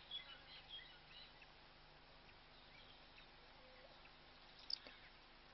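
Near-silent outdoor ambience with a few faint, high bird chirps in the first second and one brief, sharp sound near the end.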